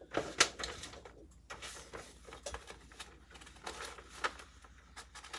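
Irregular clicks, taps and rustling of computer hardware being handled and fitted in a PC case, with one sharper click about half a second in.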